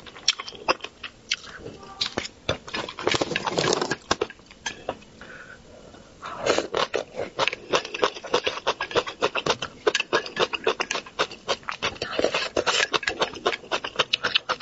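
Close-miked eating sounds: rapid wet sucking, lip smacking and chewing as the flesh is stripped from a braised fish's bones, with a short lull about halfway through.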